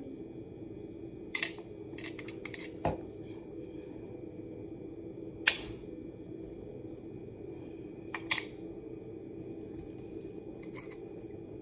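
Scattered light clicks and taps of small plastic food picks and a plate being handled, the sharpest about five and a half seconds in, over a steady low hum.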